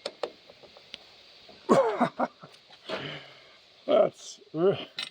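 A few light metal clicks from hand tools near the start, then a man's voice in two short untranscribed stretches with falling pitch, about two seconds in and again near the end.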